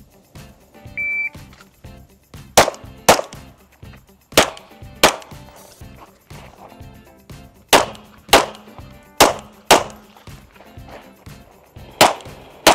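Shot-timer start beep, a short steady tone, signalling the start of the timed stage run, then pistol fire in five quick pairs of two shots (double-taps), each pair about half a second apart, with pauses of one to three seconds between pairs as the shooter moves from target to target.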